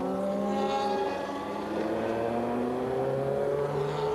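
Racing prototype's engine heard from inside the cockpit, running steadily at moderate revs, its pitch rising and falling gently as the driver eases on and off the throttle at safety-car pace.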